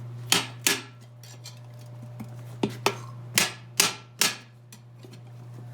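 A hammer tapping the split ring of a steel split rim into its seat: about seven sharp strikes, some in quick pairs, spread over the first four seconds, over a steady low hum.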